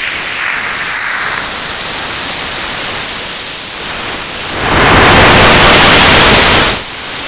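Loud, digitally distorted static hiss with high whistling tones sweeping down and back up. A louder, fuller surge of noise comes about halfway through and drops back near the end.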